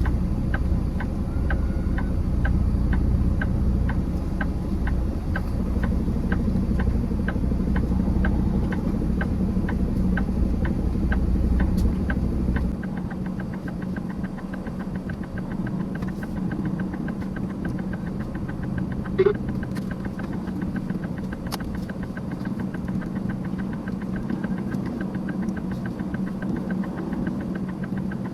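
Semi truck's diesel engine idling, with a steady ticking about twice a second over it. The deep low rumble drops away about halfway through, and a short sharp blip sounds near two-thirds of the way.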